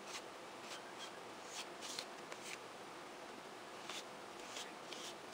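Plastic card scraping gesso across a stencil on paper: a series of short, irregularly spaced scraping strokes.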